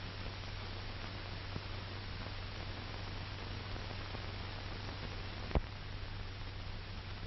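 Steady hiss and low hum of an old film soundtrack, with a sharp pop about five and a half seconds in and a fainter click earlier.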